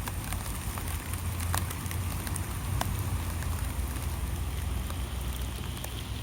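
Light rain falling steadily, a soft hiss with scattered sharp drop ticks, over a steady low rumble.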